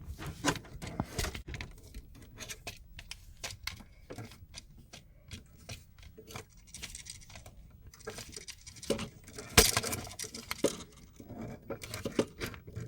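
Small clicks and scrapes of a screwdriver turning the ground terminal screw on an electrical receptacle, with a sharper click about nine and a half seconds in.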